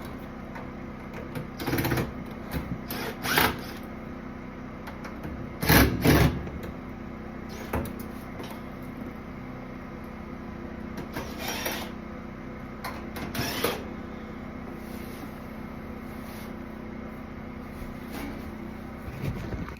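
A steady machine hum runs throughout. Several loud, short knocks and clatters come over it, the loudest a pair about six seconds in.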